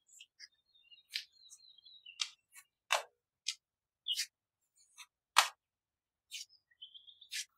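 Irregular sharp clicks and taps of hands pressing and shaping soft dough on a stone counter, two louder than the rest about three seconds and five and a half seconds in. A few faint high chirps come through between them.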